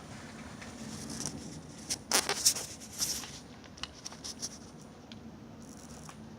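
Handling noises: a short run of scraping and clattering about two seconds in, followed by a few light clicks.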